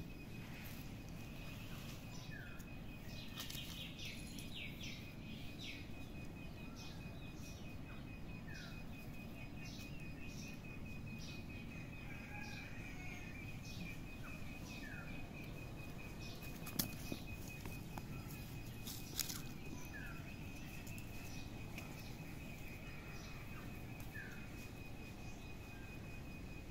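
Outdoor ambience. A bird gives a short falling call five times, about every five or six seconds, over a steady high-pitched trill and a low background rumble. Two sharp knocks come a couple of seconds apart past the middle.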